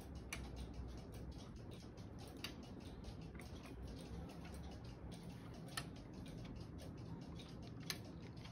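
Wooden-wheeled, weight-driven replica of a 1640 stone clock ticking steadily through its verge-and-foliot escapement: a quick run of soft wooden clicks, with a sharper click standing out every two or three seconds.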